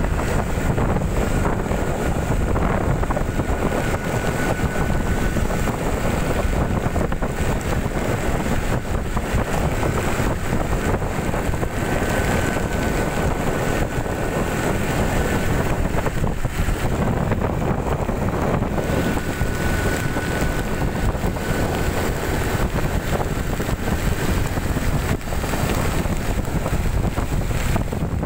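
Steady wind rush on the microphone of a moving Honda motorcycle, over the sound of the bike running on a rain-soaked road. A faint thin whine comes and goes.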